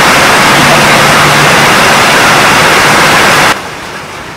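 Loud static hiss, an even white-noise effect laid over the sound, which cuts off abruptly about three and a half seconds in, leaving quieter room sound.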